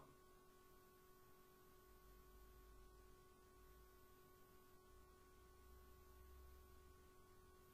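Near silence, with a faint steady hum.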